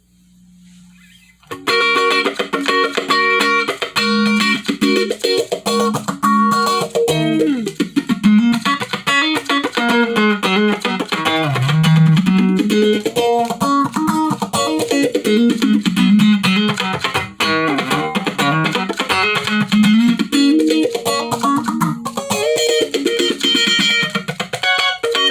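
Electric guitar played through a Malekko Phase phaser pedal, starting about a second and a half in after a faint amp hum. Chords and single notes ring with a slow, repeating swirling sweep from the phaser.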